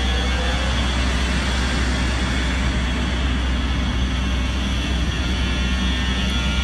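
WAG-12 twin-section electric freight locomotive moving slowly past at close range: a steady low hum and running noise with no sharp events.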